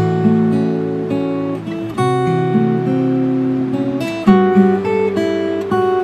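Background music: an acoustic guitar strumming chords, changing chord every second or two.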